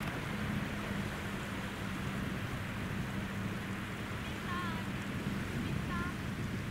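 Seaside beach ambience: a steady even hiss with a low hum beneath it. Two short high calls come through, about four and a half and six seconds in.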